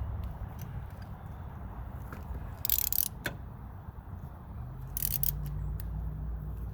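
Two short scrapes or rustles of parts being handled, about three and five seconds in, with a few faint clicks, over a low steady rumble; a low steady hum starts about four and a half seconds in.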